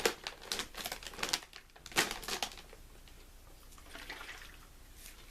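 Potato chip bag crinkling in a quick run of crackles for about two and a half seconds, then only faint handling noise.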